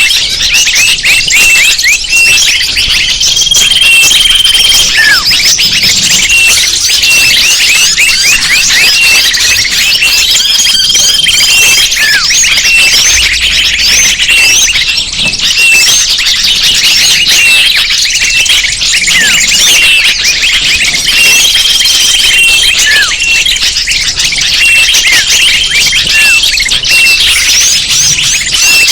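Recorded bird-lure calls: a dense, loud chorus of many small birds chirping and trilling over one another. A held, whistle-like note comes back every several seconds.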